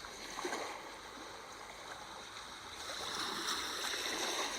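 Sea waves washing steadily, swelling louder about three seconds in.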